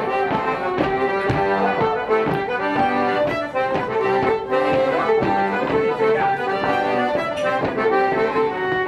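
Live traditional dance tune played on an accordion, accompanying a rapper sword dance team, with sharp taps through it.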